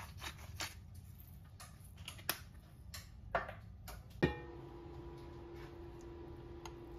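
A hand-held seasoning grinder being worked over a glass bowl of raw shrimp: a handful of short scratchy strokes spaced irregularly. About four seconds in comes a sharper knock, followed by a steady faint hum.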